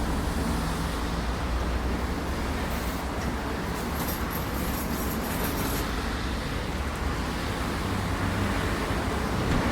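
A vehicle motor running steadily with a low hum, with faint light clicks about four to six seconds in.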